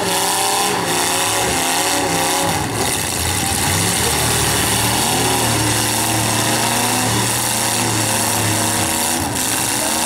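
Several demolition-derby V8 engines running and revving together, their pitches rising and falling unevenly as the cars accelerate and back off.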